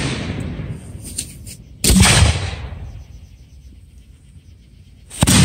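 Aerial firework shells bursting: two loud booms, one about two seconds in and another near the end, each trailing off in a long rumbling echo, with the tail of an earlier burst fading at the start.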